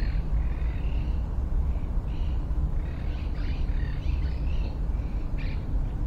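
Wild birds chirping and calling in short scattered notes, over a steady low rumble.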